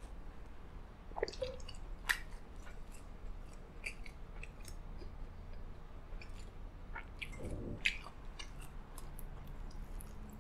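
Soft, close-miked mouth and chewing sounds with scattered small clicks, plus two sharper plastic clicks about one and two seconds in as a plastic shaker bottle is handled and closed, and a dull knock later on.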